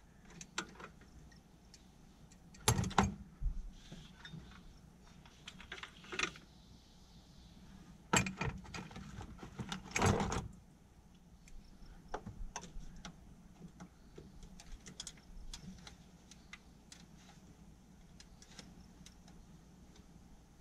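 Scattered metallic clinks and knocks from hand tools and parts being handled in a truck's engine bay, with the engine off. The loudest come in short clusters about 3, 8 and 10 seconds in.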